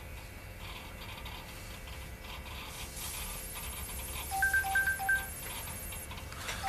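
Phone ringtone: three quick electronic beeps about four and a half seconds in, with the same three-beep pattern starting again at the end, over a faint steady background.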